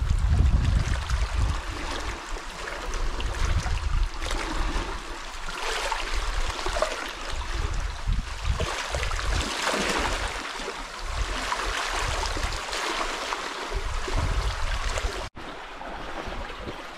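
Small sea waves lapping and trickling against a rocky shore, a steady uneven wash of water, with wind buffeting the microphone in the first couple of seconds. The sound cuts out for an instant near the end.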